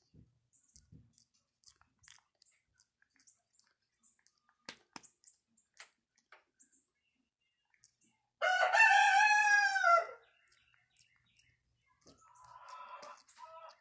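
A rooster crows once about eight seconds in, a loud call that arches up and falls away over under two seconds. Around it are faint scattered clicks from a long-tailed macaque picking through a person's hair. Near the end there is a fainter, rasping sound.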